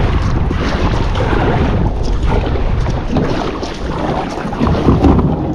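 Kayak driven hard through the water toward the bank: water rushing and splashing, with wind buffeting the microphone. The noise drops off suddenly near the end.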